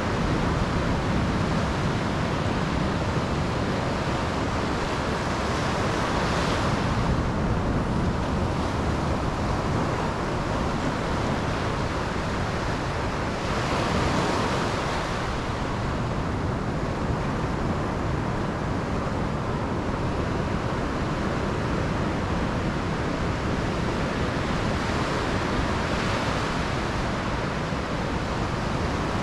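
Sea surf breaking and washing up a beach, swelling louder every several seconds as each wave comes in, over a steady low rumble of wind on the microphone.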